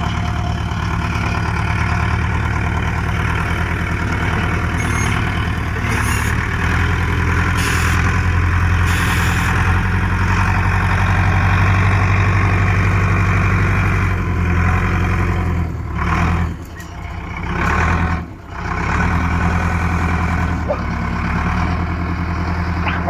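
John Deere 310G backhoe loader's diesel engine running steadily as the machine works, loudest in the middle. Its sound drops away sharply twice, briefly, about two-thirds of the way through.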